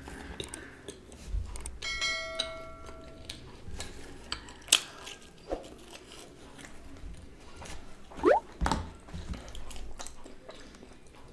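Close-miked eating sounds: wet chewing of cheesy pizza with scattered sharp mouth clicks and smacks. A short steady tone sounds about two seconds in, and a brief rising hum comes near the end.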